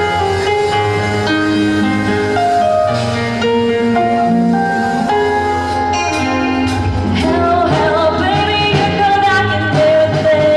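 Live band playing a pop song over the PA: held keyboard chords, then from about six seconds in a beat and a lead singer come in.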